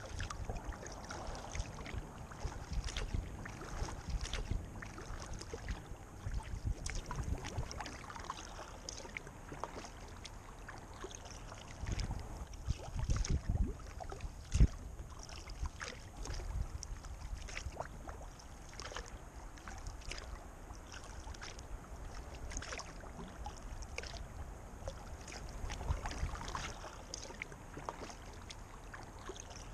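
Kayak paddle strokes in calm river water: irregular splashes and drips, with low wind rumble on the microphone. A single sharp knock about halfway through is the loudest sound.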